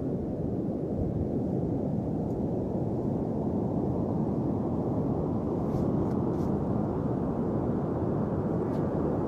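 Steady low rush of sea surf and wind, with a few faint ticks about six seconds in and again near the end.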